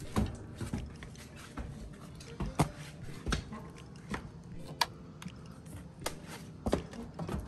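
Footsteps and knocks of someone climbing a wooden attic ladder and stepping into the attic: irregular sharp thuds about once a second, one louder knock a few seconds in, over a low steady hum.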